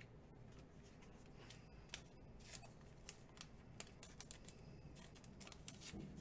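Faint handling of baseball trading cards: scattered light clicks and rustles of cards and packaging.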